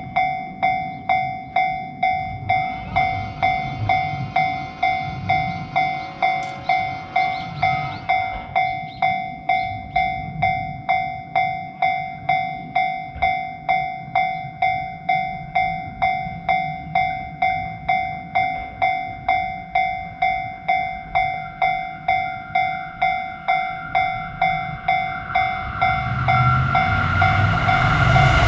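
Japanese railroad crossing warning bell ringing over and over, about one and a half strikes a second, each strike fading before the next. Near the end a louder rushing noise of an approaching train builds up.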